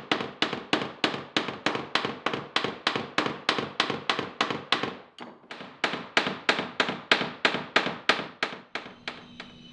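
A hand hammer striking in quick, even blows, about four a second, on the nails that fasten a soaked, bent oak rib to the clinker planking of a wooden boat. The blows pause briefly about halfway, then carry on and stop shortly before the end.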